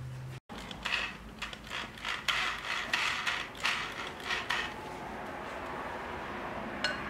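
Irregular mechanical clicks and rattles as a handheld reciprocating saw is handled and readied against an aluminium intercooler pipe, dying down after about four seconds.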